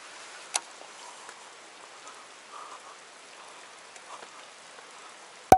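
Steady patter of water drops splashing onto the surface of a pool, with water running down the rock face beside it. A sharp click about half a second in, and a loud click at the very end where the sound cuts off.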